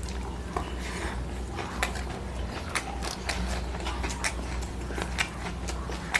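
Close-miked eating by hand: chewing and wet mouth smacks with irregular sharp clicks as rice is mixed and eaten, over a low steady hum.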